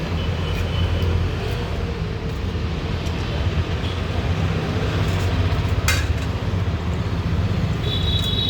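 A vehicle engine running with a steady low rumble, with a sharp click about six seconds in.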